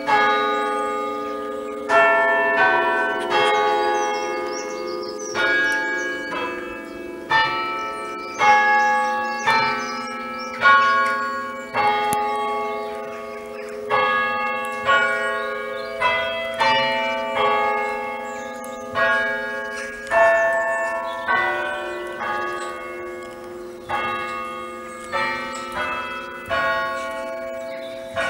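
Church bells of St Mary's, Bitton, hammer-struck one at a time on an Ellacombe chime apparatus. The strikes come about once a second at uneven spacing and on changing notes, like a slow tune, and each bell's hum rings on under the next strike.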